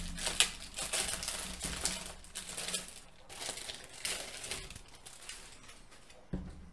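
Clear plastic kit bag crinkling and rustling as a plastic model sprue is handled and slid out of it, busiest in the first few seconds and then dying down.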